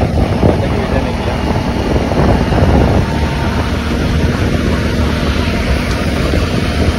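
Motorcycle riding at road speed, with wind buffeting the microphone and the engine running steadily underneath.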